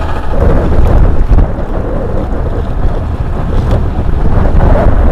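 Wind buffeting the microphone in a heavy, uneven low rumble, with choppy sea water underneath.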